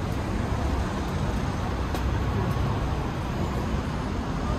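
Steady city street traffic noise, a low rumble of car engines and tyres.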